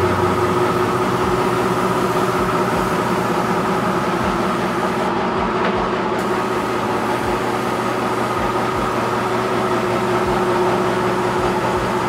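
Steady mechanical drone, several held tones with a hiss over them, unchanging throughout.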